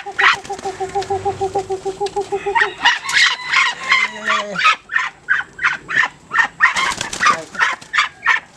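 Farmyard poultry calling: a long, rapidly pulsing call for the first three seconds, then a run of short, sharp clucks and squawks.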